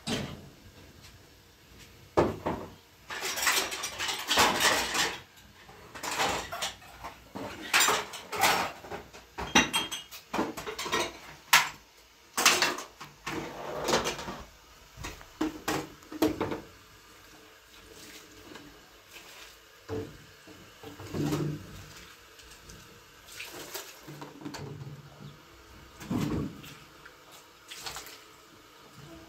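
Pots, dishes and metal utensils clattering and knocking in irregular clanks, thick and busy through the first half, then sparser.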